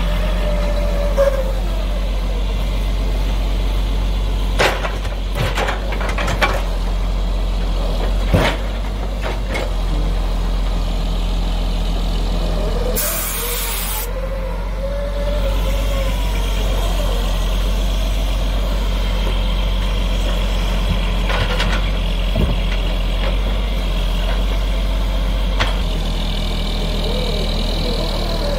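Mack Superliner log truck's diesel engine running steadily while its knuckleboom loader works, with a few sharp knocks as the timber mats are handled. About halfway through there is a short burst of air hiss.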